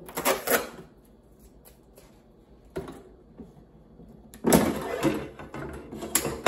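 Packing tape being peeled off the plastic sides of a Ninja air fryer, then, about four and a half seconds in, the air fryer's basket drawer sliding out with a rough plastic scrape under a second long, followed by sharp clicks near the end.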